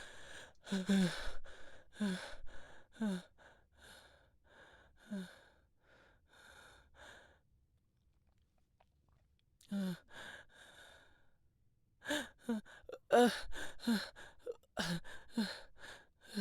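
A person panting heavily, each breath a short voiced gasp, out of breath as if from running. The gasps fade out about halfway through, stop for a couple of seconds, then resume and come quicker.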